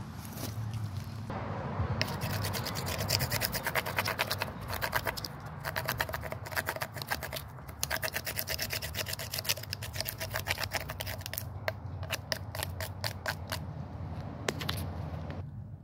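Rapid back-and-forth scraping of a knife blade on freshly cut pine wood, many strokes a second, thinning to scattered scrapes near the end.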